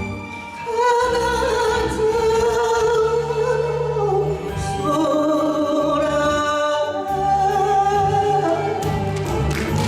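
Enka song sung by a woman to a karaoke backing track, with long held notes and wide vibrato over the accompaniment.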